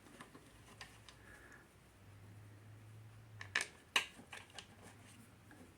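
Faint handling sounds of small metal parts and hand tools: scattered light clicks, with a quick run of sharper clicks and taps about three and a half to four and a half seconds in.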